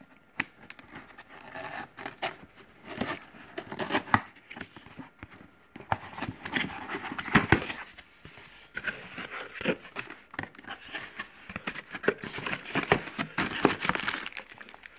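Cardboard box being opened and its packaging handled: irregular rustling and crinkling with many scattered clicks and knocks.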